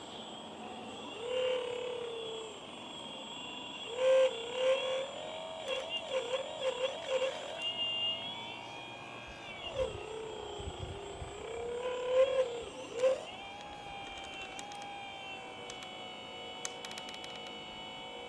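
Remote-controlled model excavator's electric motors whining under load. The pitch wavers rapidly for a few seconds, sags about ten seconds in and climbs back up, as the machine's movements are worked, with a few light clicks.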